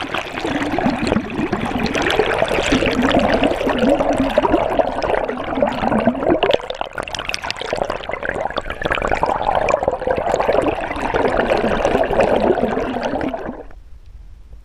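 Water rushing and bubbling around a submerged action camera, a loud crackling wash that starts suddenly and cuts off near the end.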